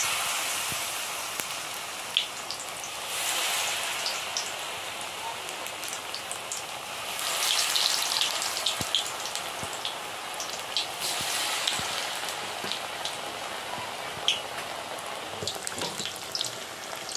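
Radish fritters in rice-flour batter deep-frying in hot vegetable oil in a steel kadai: a steady sizzle with small crackling pops. The sizzle swells up four times as fresh fritters go into the oil.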